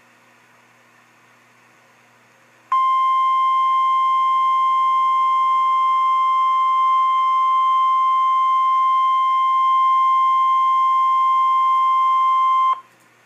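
NOAA Weather Radio warning alarm tone: one steady 1050 Hz tone, about ten seconds long, starting about three seconds in and cutting off sharply near the end, signalling that a warning is about to be read. Faint radio hiss before and after it.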